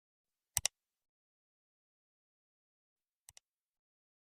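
Silence broken by a sharp double click about half a second in, and a much fainter double click a little after three seconds.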